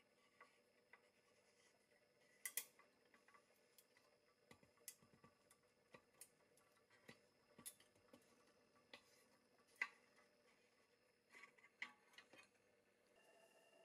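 Light metal clicks and ticks, a dozen or so at irregular spacing, as a screw-type rivet press is turned and shifted against a toy truck's pressed-steel bumper and grille.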